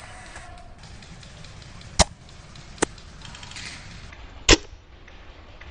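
Three sharp impacts over a steady background hiss: a loud one about two seconds in, a weaker one just after, and another loud one near the end.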